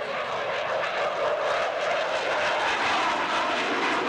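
Jet engines of an F/A-18 Hornet-family fighter running in a steady, loud roar as it flies a slow pass with landing gear and tail hook down, growing slightly louder toward the end.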